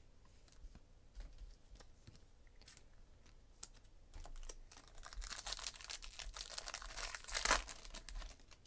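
A foil 2016 Topps High Tek trading-card pack being torn open and crinkled: a dense crackle for about three seconds, loudest near the end. Before it come a few light clicks of cards being handled.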